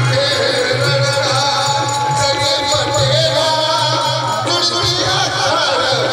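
Amplified Marathi tamasha folk song: a singing voice over drum and percussion accompaniment.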